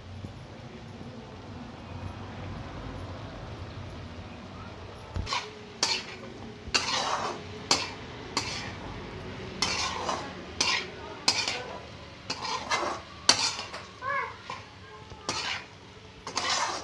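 Metal spatula scraping and clanking against a metal kadhai as sliced pointed gourd and potato are stir-fried in hot oil, over a low sizzle. The sizzle runs alone at first; the spatula strokes begin about five seconds in and come irregularly, roughly one or two a second.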